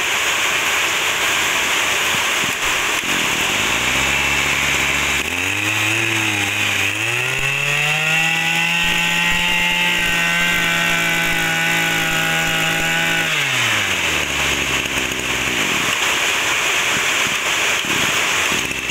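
Maruyama BIG M 26 cc two-stroke brush cutter engine idling, then revved up in two steps to high revs, held there for about five seconds, and dropped back to idle.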